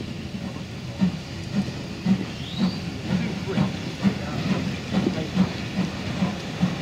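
Steam locomotive starting away: its exhaust beats begin about a second in at roughly two a second and slowly quicken, over a steady hiss of steam.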